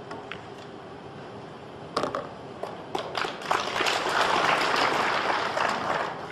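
A cue tip strikes the cue ball about two seconds in, followed by a few sharp pool-ball clicks as the 4-ball is potted. Audience applause then rises and carries on for a couple of seconds, fading near the end.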